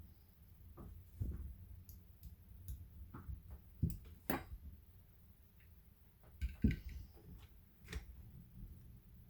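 Scattered clicks and light knocks of Dye DSR+ paintball marker parts and tools being handled during reassembly, with the loudest knocks about four and six and a half seconds in.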